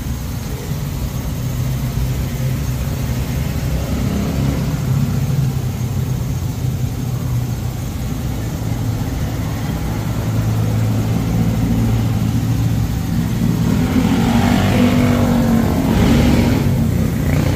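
A motor vehicle engine running steadily, a little louder in the last few seconds.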